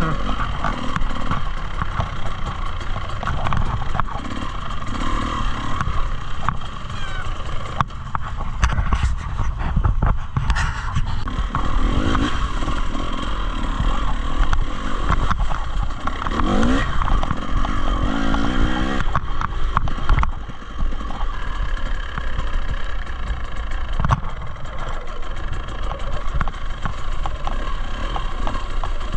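Dirt bike engine running on a trail ride, its pitch rising and falling as the throttle opens and closes, with rattles and knocks from the bike over rough ground.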